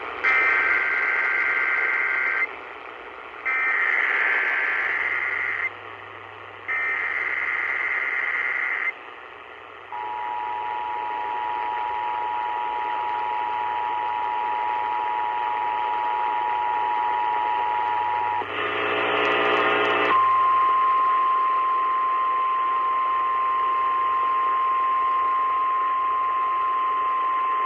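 Emergency Alert System signal received over AM radio with steady static hiss: three short bursts of screeching SAME header data, then the two-tone attention signal held for about eight seconds. A brief buzzy burst follows, then a single steady tone for about seven more seconds.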